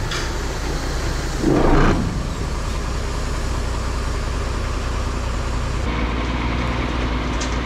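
Diesel dump truck engine running as the truck moves slowly along a gravel drive, with a brief louder swell about a second and a half in.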